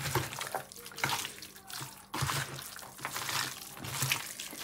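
Wet squelching of raw pork chunks in an oil-and-spice marinade being kneaded and turned by hand in a bowl, in irregular strokes about twice a second.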